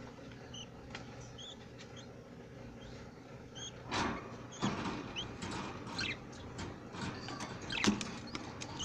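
Budgerigars chirping in short, high, scattered calls, with a few clicks and rustles, the loudest about four and eight seconds in.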